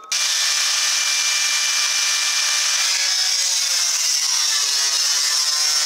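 Corded drill with a hole saw cutting through the sheet-steel truck hood: a loud, steady, high-pitched screech that starts suddenly and runs without a break.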